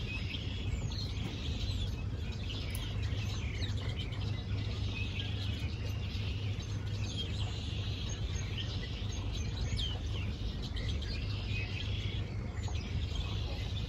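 Many small birds chirping and calling in quick short notes, over a steady low hum.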